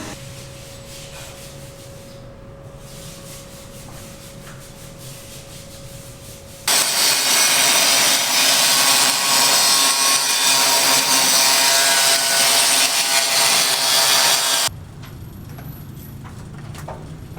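A construction tool running, a loud, steady, harsh rasping noise that starts suddenly about seven seconds in and cuts off abruptly about eight seconds later.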